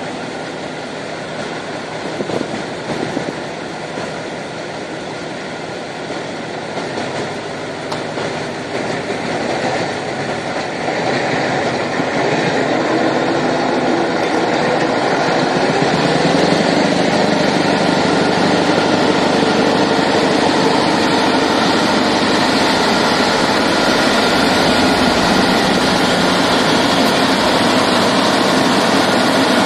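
Heavy diesel truck engine working hard under load while a truck bogged in deep mud is pulled out on a cable. The engine sound swells about halfway through and then stays steady and louder.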